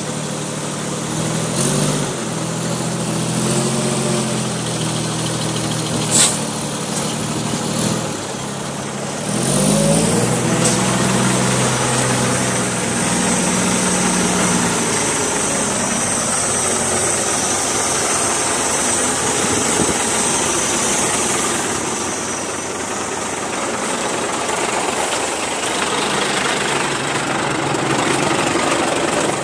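Heavy diesel engines of a wheel loader and a Scania truck running, the revs rising and falling several times in the first half and then settling to a steady run. A single sharp knock about six seconds in, and a steady high hiss from about nine to twenty seconds.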